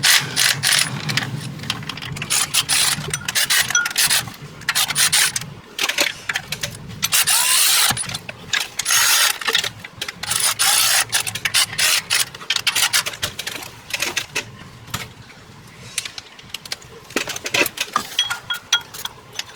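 Hand ratchet clicking in repeated quick bursts, with short pauses between them, as the bolts of a new water pump are run down snug.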